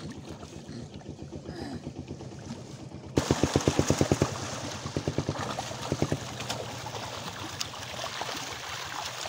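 Fish thrashing in a seine net drawn tight in shallow water: a sudden run of rapid slapping splashes, about ten a second, starts about three seconds in and lasts about a second, then the water keeps splashing with a few more slaps.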